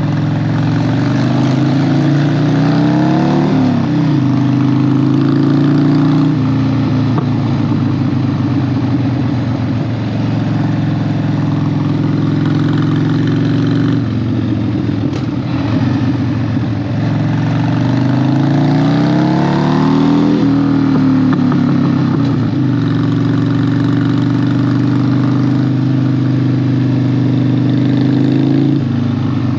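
Harley-Davidson 1200 V-twin motorcycle engine under way, its pitch climbing and dropping back at gear changes several times between stretches of steady running.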